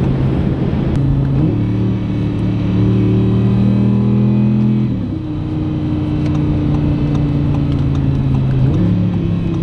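Audi R8's 5.2-litre V10 pulling hard under acceleration. The engine note jumps up about a second and a half in and climbs, drops sharply at a gear change about five seconds in, then jumps up again near the end.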